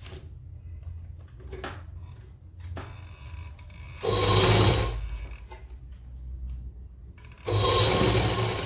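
A sewing machine stitches a seam joining two fabric pieces in two short runs of about a second each, one about four seconds in and another near the end. Between the runs there is a low steady hum and the soft sound of fabric being handled.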